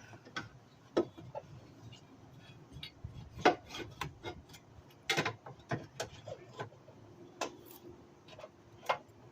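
Scattered clicks, taps and light knocks of a plate being worked back into place on the engine, with no steady rhythm.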